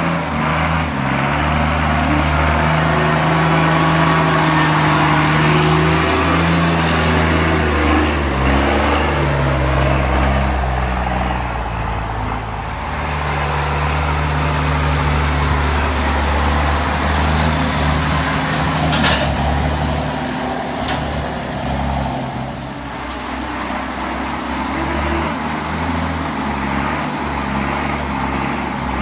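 County 1164 Turbo tractor's turbocharged six-cylinder diesel engine working hard as it buck rakes maize. The revs and load rise and fall several times, with a short sharp click about two-thirds of the way through.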